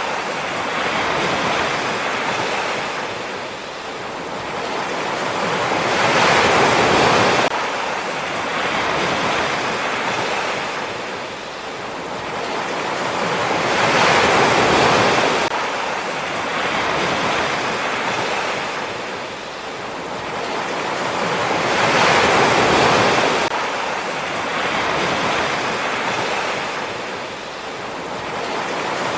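Sea surf: waves breaking and washing back, the rush swelling and falling away about every eight seconds.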